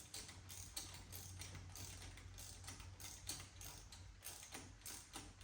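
Faint clicking of a ratchet wrench turning the bolts of the exhaust's banjo clamp fittings, snugging them up, over a low steady hum.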